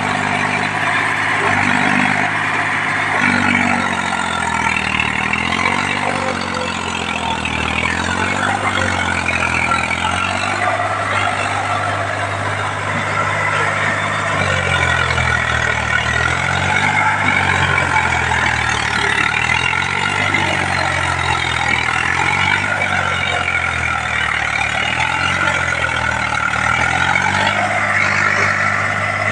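Eicher 485 tractor's diesel engine labouring under load as it pulls through deep mud, its note rising and falling as the throttle and load change.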